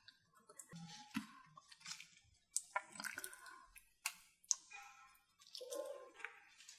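Close-miked wet, sticky clicks and smacks from handling and eating a large sea snail: the meat is pulled from its shell and dipped in sauce, then taken into the mouth. The clicks are faint and scattered.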